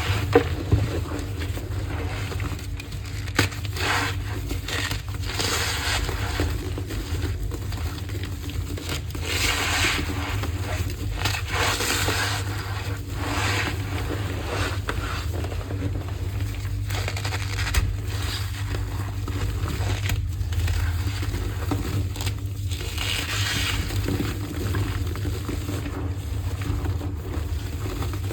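Blocks of gym chalk being crushed and crumbled, with repeated scraping, crunching pulses. A steady low hum runs underneath.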